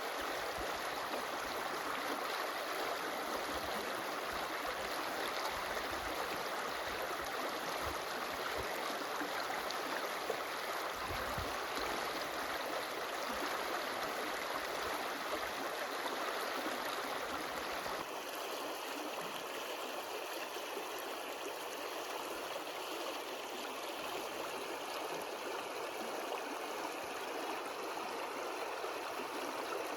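A stream running steadily, a continuous rushing and gurgling of water. About two-thirds of the way in the sound changes slightly and becomes a little thinner in the lows.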